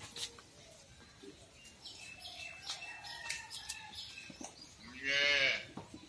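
A goat bleats once, loud and wavering, for under a second near the end. Before it come faint high chirps and small clicks.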